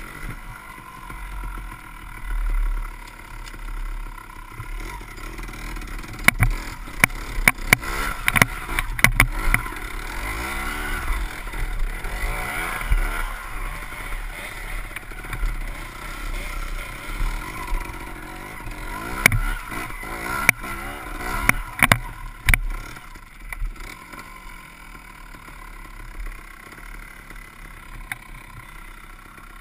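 Trial motorcycle engine running at low revs, its pitch rising and falling with the throttle. Two clusters of sharp knocks and clatter come as the bike goes over rocks, one about six to ten seconds in and another around twenty seconds in.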